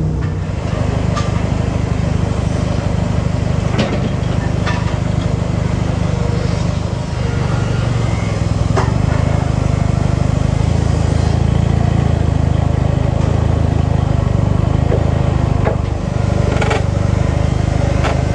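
Portable sawmill's engine running steadily, with a few sharp knocks and clanks here and there.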